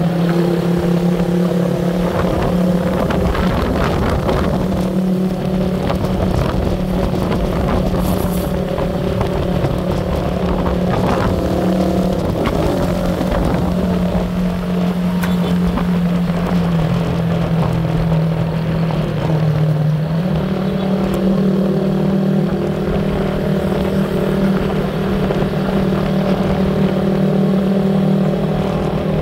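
Motor vehicle engine running at steady road speed, with wind rushing past. Its note drops a little for a few seconds past the middle, then picks back up.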